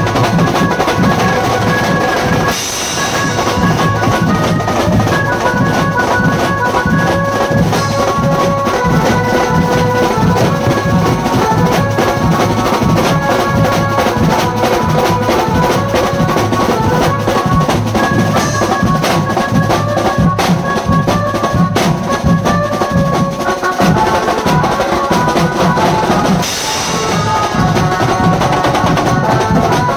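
Drum-heavy band music: a busy drum kit with bass drum and snare rolls under a stepping melody line. The drums drop out briefly with a cymbal crash about two and a half seconds in and again near the end.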